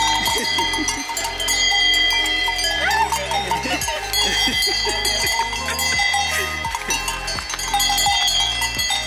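Several cowbells on the necks of a small herd of cows clanking and ringing continuously, overlapping one another as the cows jostle and walk along the trail.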